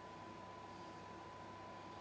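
Faint steady single-pitched test tone with a low hum and hiss beneath it: the modulation tone of a test signal heard during CB receiver alignment.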